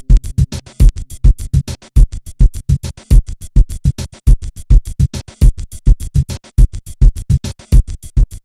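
Electronic background music with a fast, steady beat of sharp drum hits and heavy bass thumps.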